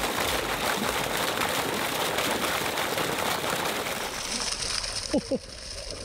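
Water and live shiner minnows gushing out of the end of a long PVC pipe and splashing into a pond: a steady, even rushing splash. About five seconds in there is a brief double sliding squeak, and then the rush gets quieter.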